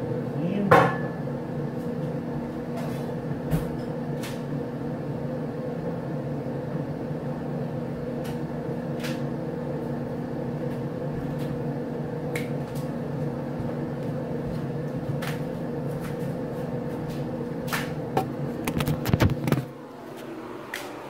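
Steady hum of a running kitchen appliance, with scattered sharp clicks and knocks of dishes and glassware. Near the end, a quick run of knocks and rubbing comes as the camera is handled, and the hum then drops away.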